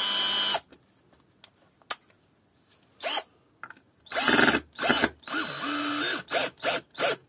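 Parkside PBSA 12 12-volt cordless drill-driver driving a screw into wood with a PZ2 bit, run in short bursts on the trigger. One burst at the start, then a pause, then more bursts in the second half, with a longer run of about a second and quick blips about three a second near the end, the motor whirring up and down with each.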